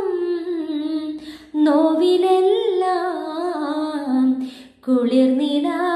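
A slow Malayalam song sung by a high voice, in three sung phrases with short breaks between them.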